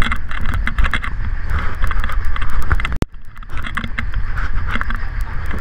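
Dive boat underway, heard through a GoPro's waterproof housing sitting in a bucket of water: a steady low engine drone with water sloshing and many small knocks and clicks. A sharp click about three seconds in is followed by a brief drop in level.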